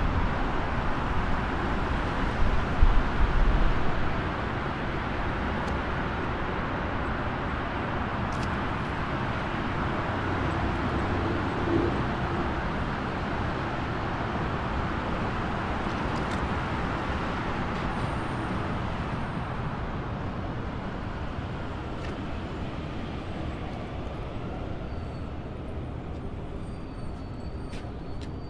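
Steady highway traffic noise, a continuous wash of passing tyres and engines, swelling louder about three seconds in as a vehicle passes close, then easing off slightly toward the end. A few faint high chirps come near the end.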